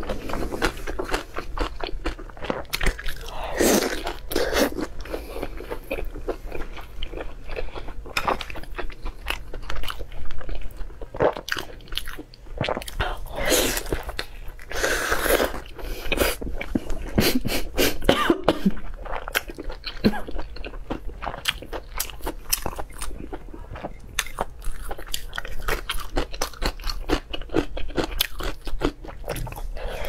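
A person biting and chewing braised pork belly close to a clip-on microphone, with many short wet mouth clicks coming irregularly.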